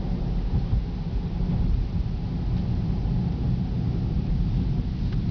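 Cabin noise of a 2009 Cadillac CTS-V under way: a steady low rumble of road and engine noise heard from inside the car.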